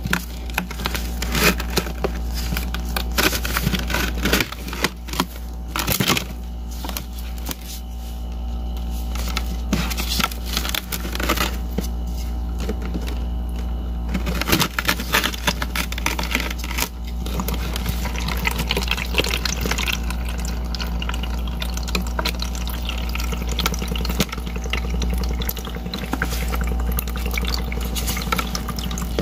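Wet rubber balloon being peeled off a ball of frozen water, with many small crackles and clicks and water trickling into a plastic colander, over a steady low hum.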